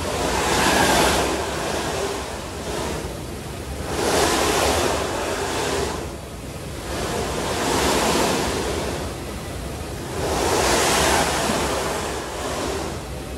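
Snowboard edge scraping across the moving carpet of an indoor ski treadmill slope as the rider carves turns: a swishing hiss that swells and fades four times. A steady low rumble runs underneath.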